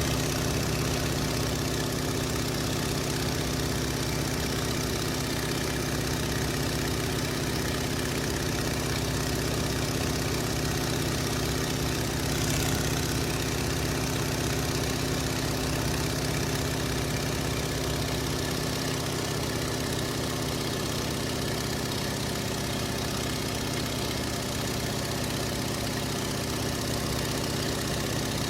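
Car engine idling steadily, at an even pitch throughout.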